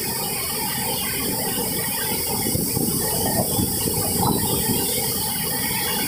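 Water pouring over a river weir's spillway and churning below it: a steady, dense rush of noise with a crackling texture.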